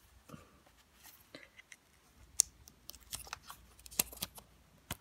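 Small clicks and handling noise of a Lightning cable being fitted into an iPhone 11's charging port, several light clicks with the sharpest about halfway through.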